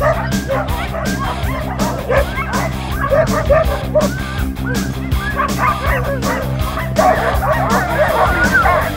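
Many sled dogs barking and yipping together in a constant chorus over background music. The yipping gets louder about seven seconds in.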